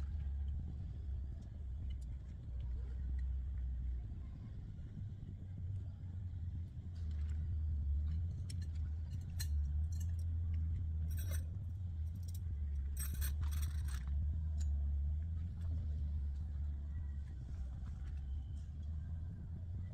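Steady low rumble with scattered light metallic clinks and jingles, thickest for a few seconds in the middle.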